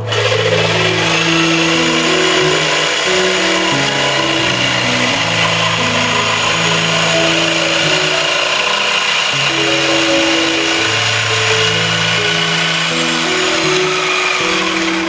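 An electric power tool running steadily for the whole stretch, a dense noise with a steady high whine, starting abruptly and cutting off at the end, over background piano music.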